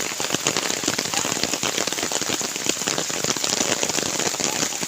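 Heavy rain falling, a steady dense crackle of drops striking a surface.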